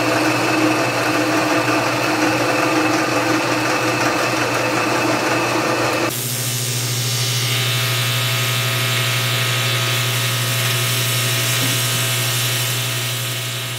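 Vertical milling machine cutting a fabricated intake manifold with an end mill, a steady machining sound. About six seconds in it cuts abruptly to the steady buzz of a TIG welding arc on the manifold.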